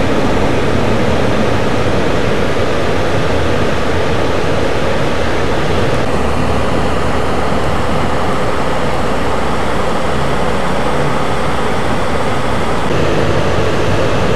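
Car cabin noise while driving: a steady mix of engine and road rumble with an even hiss, shifting slightly in tone about six seconds in and again near the end.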